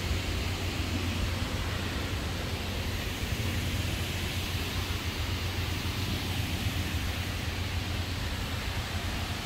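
Steady outdoor background noise: an even hiss with a constant low hum underneath and no distinct events.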